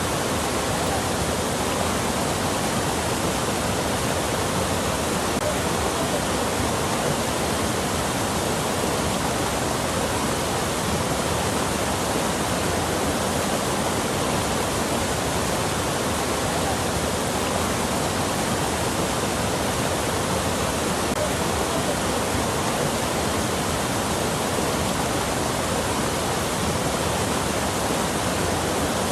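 Flowing water rushing steadily, an even, unbroken wash of sound.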